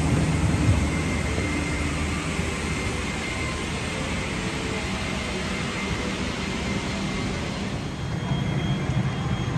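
Steady airliner cabin noise at the gate during boarding: an even rush of air with a low hum beneath it.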